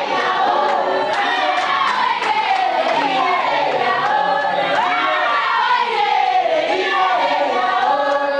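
A group of school students singing a Jerusarema (mbende) dance song together in chorus, with scattered hand claps.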